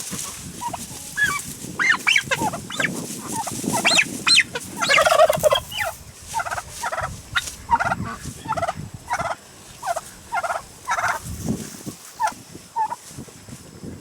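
Turkeys calling: a flurry of overlapping squawking calls in the first half, then a run of short, evenly spaced calls at about two a second.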